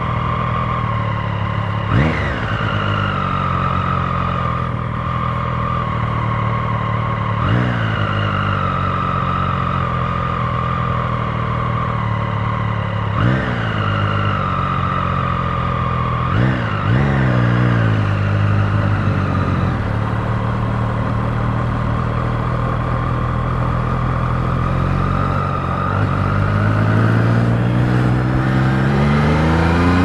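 Triumph Street Triple 765 RS inline three-cylinder engine idling at a standstill, with a handful of short throttle blips. Near the end the revs climb steadily as the bike pulls away.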